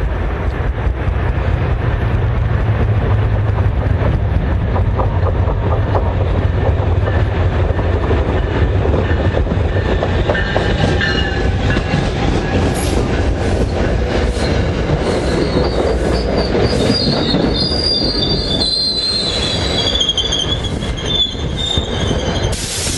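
Passenger train passing close by: a heavy low rumble at first, then the wheels squealing on the rails from about halfway on, over a steady clatter of wheel clicks.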